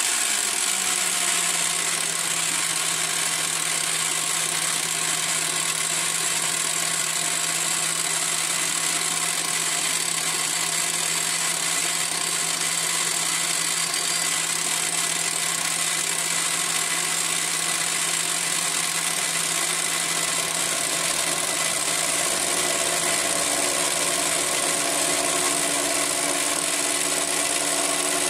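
Parkside direct-drive pillar drill motor running an end mill at about 1200 RPM through a milling pass on a metal bar, with an electric drill turning the table feed; a steady, even machining whine and cutting noise.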